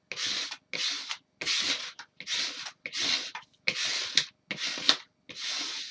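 Plastic squeegee burnishing a vinyl decal through its application tape: about eight even, scraping strokes in a steady rhythm, each one a pass of the squeegee pressing the decal down onto the surface.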